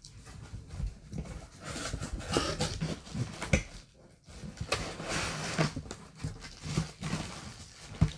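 Cardboard box of a heavy cast-iron Dutch oven being wrestled open: irregular scraping and rustling of the cardboard flaps, with scattered dull knocks.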